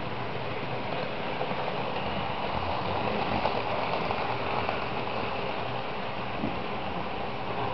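Model train running on the track close by: a steady rushing noise of small wheels on the rails and the running motor, a little louder about three seconds in.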